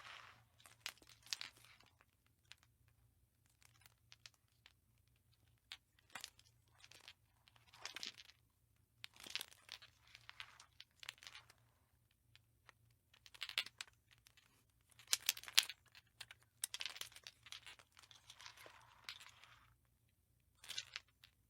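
Light bulb being handled: irregular bursts of crinkly scraping and small sharp clicks, each about a second long, with short gaps between.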